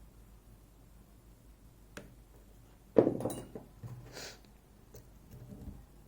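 Metal lock-picking tools handled against a high-security lock cylinder: a light tap about two seconds in, then a sharp metallic clack with a short clinking rattle, a brief scrape and a few faint clicks.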